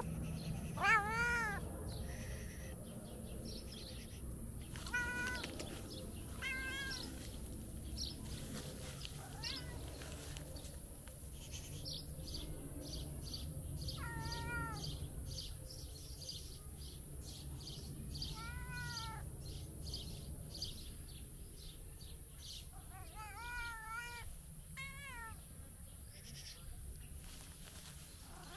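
Tabby cat meowing over and over, about eight separate meows that each rise and fall in pitch, the loudest about a second in and two close together near the end.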